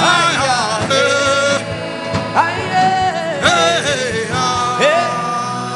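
Worship music: a voice sings long, bending, wavering notes over steady instrumental backing.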